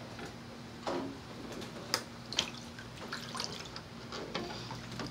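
Faint splashing and sloshing of water in a shallow plastic kiddie pool as a child moves about and handles toys, with a few brief light taps and drips over a steady low hum.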